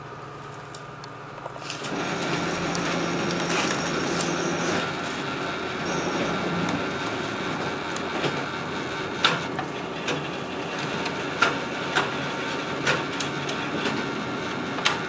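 Panasonic 8045 digital photocopier starting up about two seconds in and running through a double-sided copy, with a steady whirr of motors and feed rollers. A high thin whine runs for the first few seconds of the run, and sharp clicks come about once a second in the second half. The paper feeds through without the misfeed jam.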